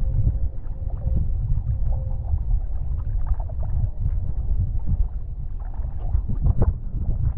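Wind buffeting the microphone and water rushing past a windsurf foil board in flight, with scattered splashes. A faint steady hum fades out about two seconds in.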